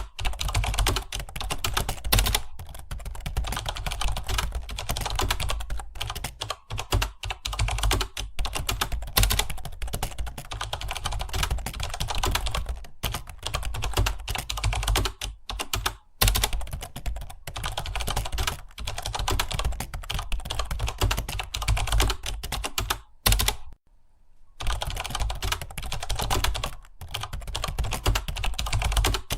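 Fast, continuous typing on a computer keyboard, dense key clicks with a short pause about two-thirds of the way through.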